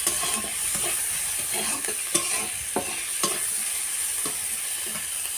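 Chopped onions sizzling in oil in a metal kadai as they are fried until reddish-brown. A metal spatula stirs and scrapes them, with scattered short clicks where it knocks the pan.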